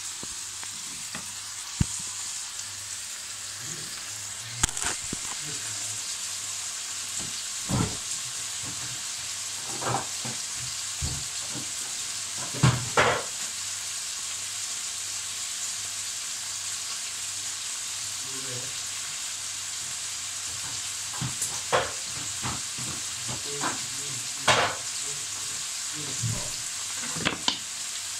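Diced carrots and potatoes sizzling steadily in oil in a frying pan, with scattered short clinks and knocks, most of them bunched together about halfway through and again near the end.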